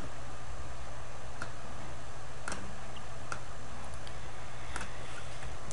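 A few isolated computer mouse clicks, roughly a second apart, over a steady low hum.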